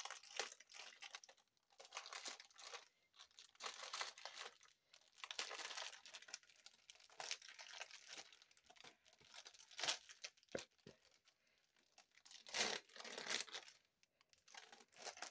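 Clear plastic bags crinkling and rustling in irregular bursts as a strip of small zip-lock bags of diamond-painting drills is handled and pulled from a larger plastic bag. The loudest crinkles come near the end.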